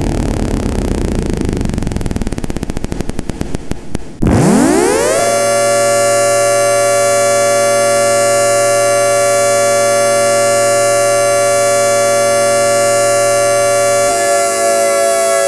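Synthesized ACA Hurricane siren, the 10-12 port combination with echo. It opens winding down with a falling, fluttering pitch, then about four seconds in it winds up quickly to a steady multi-tone howl that holds, wavering slightly near the end.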